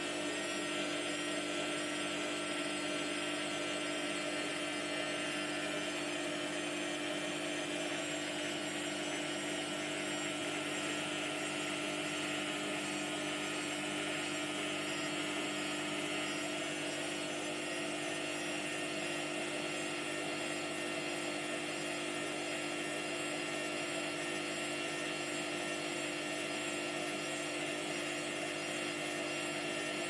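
Hotpoint Aquarius WMF720P washing machine spinning its drum at a steady speed, its motor giving an even whine with several steady tones.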